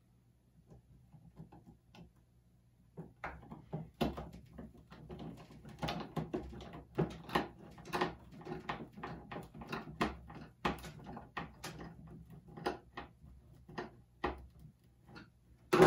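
Small screws being driven by hand with a Phillips screwdriver through metal mending plates into a wooden board: a run of irregular creaks and clicks as the screws turn and bite into the wood, starting a few seconds in, with a louder knock at the very end.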